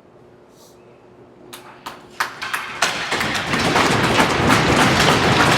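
Arena crowd applauding. A few scattered claps or knocks about two seconds in build from about three seconds into steady, loud applause, which is the customary applause for an injured player getting back up.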